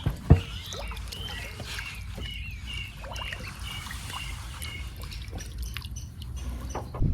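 Birds chirping in short, repeated calls, over a low steady rumble. A single sharp knock comes about a third of a second in.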